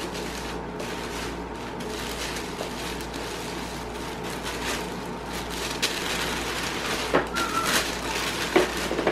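White wrapping paper rustling and crinkling as a gift is unwrapped, with a few sharper crinkles in the second half.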